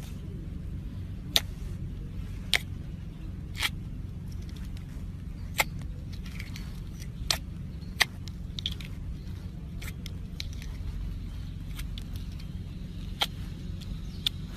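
Slime being squished and worked by hand, giving sharp sticky pops and clicks at uneven intervals, roughly one every second, over a steady low hum.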